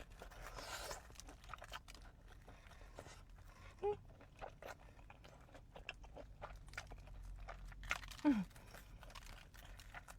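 Crunchy biting and chewing of a fried Korean corn dog close to the microphone: a string of crisp crunches throughout.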